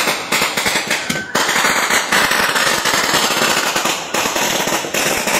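A string of firecrackers going off in a rapid, dense run of sharp bangs, one cracker after another along the fuse, with only the briefest breaks.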